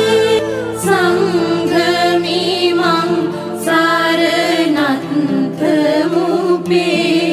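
Background music: a slow sung chant, the voice gliding between held notes over a steady low drone.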